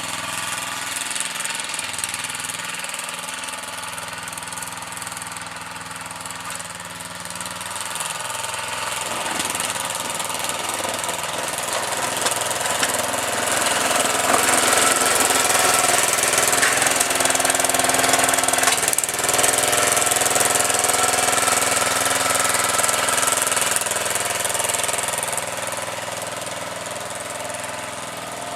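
Small petrol engine running steadily, getting louder from about nine seconds in and easing back off near the end, with a hiss rising and falling along with it.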